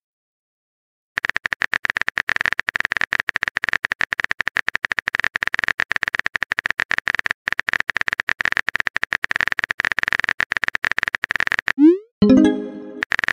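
Rapid electronic typing clicks, the texting-app keyboard sound effect, start about a second in and run on steadily. Near the end a short rising blip is followed by a brief chiming message tone.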